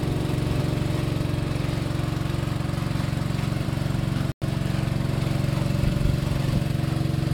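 Small riverboat's engine running steadily at cruising speed, a low, even hum with a fast pulse. The sound cuts out for an instant about four seconds in.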